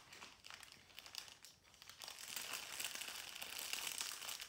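Clear plastic packaging crinkling as hands handle a bag of diamond-painting drill packets. The rustling grows louder from about two seconds in.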